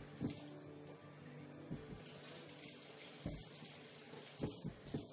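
Kitchen sink sprayer running water over a rusty hand saw blade as it is rinsed, with a steady hiss of spray. A few short low knocks come through it.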